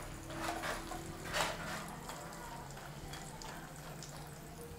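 Dried turkey berries (sundakkai vathal) sizzling as they fry in hot oil in a stainless-steel kadai, with a metal spatula scraping and stirring them; the loudest scrape comes about a second and a half in.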